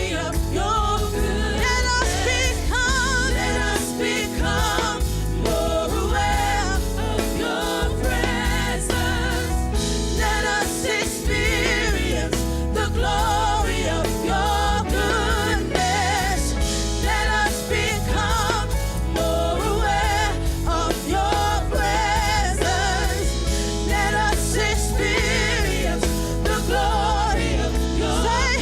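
Gospel worship music: a lead singer and backing singers with a live band.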